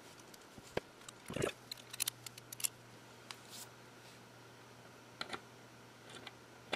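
Scattered small metal clicks and taps from a hand screwdriver being handled and its bit changed, then the tip settling into a screw on an opened hard drive. The clicks are irregular, busiest in the first half, with a sharper click at the very end.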